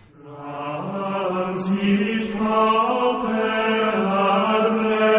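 Chanting: a voice or voices singing long held notes, moving slowly from note to note. It fades in over the first second.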